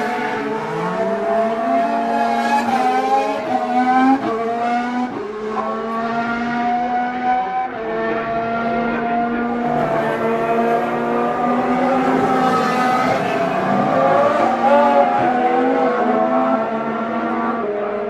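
Several 2016 Formula 1 cars' 1.6-litre V6 turbo-hybrid engines running at once, their overlapping notes rising through the revs and dropping at each gear change.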